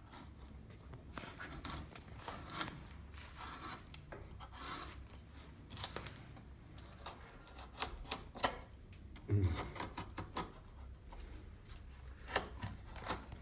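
Hand carving knife paring shavings from a wooden marionette body: irregular short scrapes and snicks of the blade cutting through the wood.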